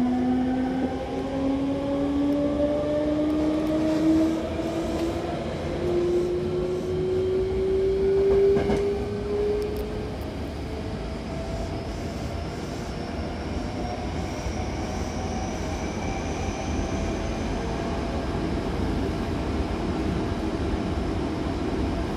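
Hankyu electric commuter train accelerating, heard from inside the passenger car. The traction motors' whine climbs steadily in pitch over the first ten seconds or so, then fades into steady running noise, with a fainter high whine rising later on.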